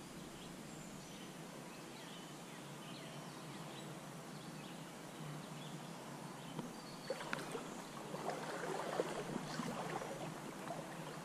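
Shallow stream water flowing and sloshing steadily. From about seven seconds in, irregular small splashes and clicks grow a little louder.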